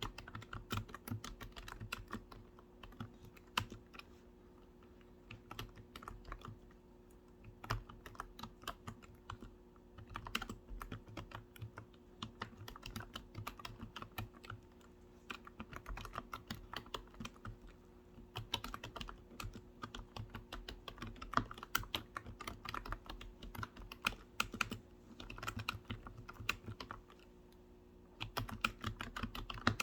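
Typing on a computer keyboard: quick runs of key clicks broken by pauses of a second or two.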